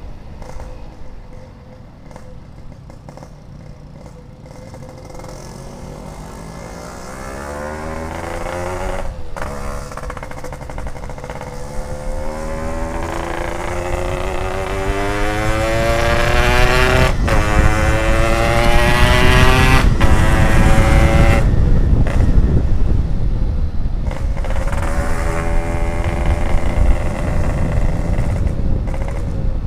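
Yamaha RX-King two-stroke motorcycle engine accelerating through the gears, its pitch rising and getting louder, with short breaks where it shifts. About two-thirds of the way through it eases off, then picks up again.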